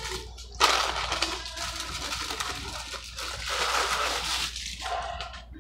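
Paper burger wrapper crinkling and rustling as a burger is unwrapped and pulled out, starting sharply about half a second in.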